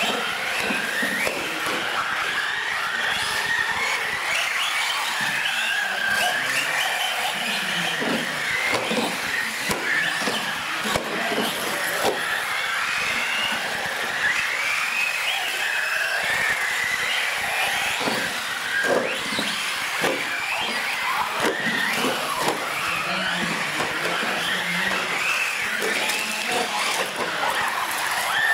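Several radio-controlled UTV race cars running laps on a smooth concrete floor: their motors whine, rising and falling in pitch as the throttles open and close. Tyres squeal in the turns, and there are occasional knocks from the cars hitting the track edges and ramps.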